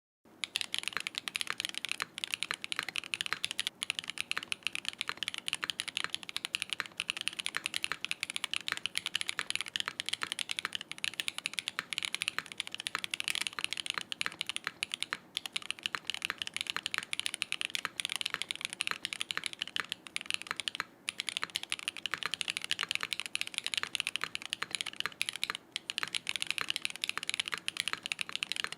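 Fast, continuous typing on a Smith+Rune Iron160 mechanical keyboard with a copper plate, lubed Gateron Raw linear switches and CRP R5 keycaps, with no foam or dampening inside. It is a dense clatter of keystrokes that starts just after the beginning, with a brief lull about two-thirds of the way through.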